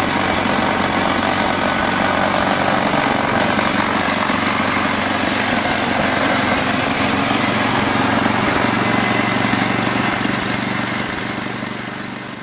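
A machine running steadily, a low hum with a loud hiss over it, fading out near the end.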